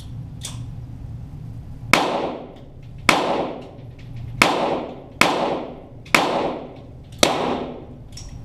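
.22 Walther GSP target pistol shots heard from beside the targets: six sharp cracks at uneven spacing of about a second, each trailing off in echo.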